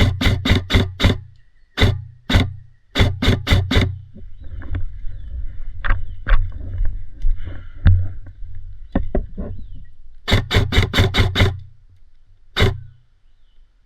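Airsoft gun firing strings of rapid shots, each shot a sharp crack over the hum of its mechanism, with single shots and scattered fainter shots between the strings.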